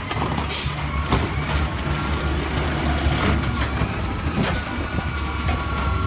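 Automated side-loading garbage truck running, its engine humming low and steady while the hydraulic arm grabs and lifts a wheeled trash cart, with scattered clanks. A thin steady whine comes in about two seconds in.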